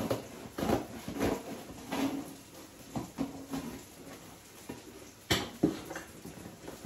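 Scissors cutting and scraping through packing tape on a cardboard box, with rustling and irregular knocks against the cardboard; the sharpest knock comes about five seconds in.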